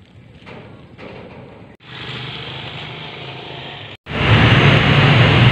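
Outdoor background noise across three short cuts: faint at first, a little louder after about two seconds, then a much louder steady rumble and hiss from about four seconds in.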